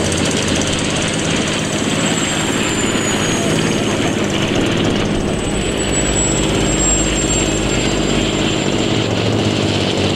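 Engines and propellers of a radio-controlled model aircraft droning steadily in flight, with a thin high whine that wavers in pitch.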